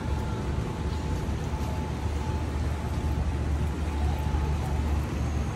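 Steady low rumble of city street traffic, with a faint steady hum over it.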